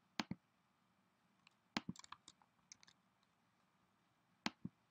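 Computer mouse button clicking: three sharp press-and-release double clicks, one near the start, one just under two seconds in and one near the end, with a few fainter clicks in between.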